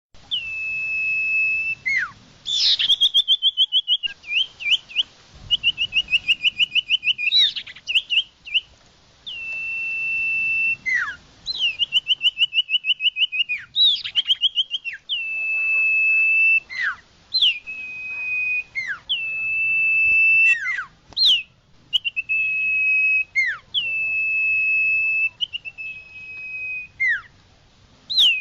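Iora singing: long, level whistled notes, each ending in a quick downward slide, alternating with fast runs of rapidly repeated notes.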